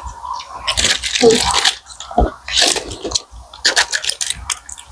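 Close-miked eating: a person chewing and biting fast food, heard as several short crunchy, scraping bursts.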